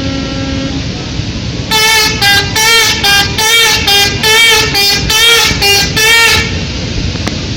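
A horn sounds a steady low note for the first second, then, about two seconds in, a run of about ten loud, separate blasts at a higher pitch that wavers, ending about a second before the end.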